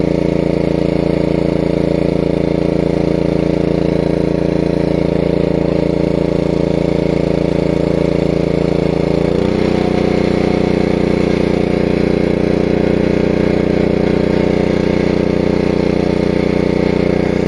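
Small engine of a water pump running steadily, drawing water out of the pit through a hose. Just over halfway through, its note shifts and settles slightly lower.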